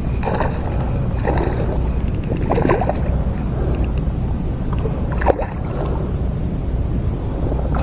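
Water splashing in short bursts, four or five times, as a hooked bass thrashes at the surface, over a steady low rumble.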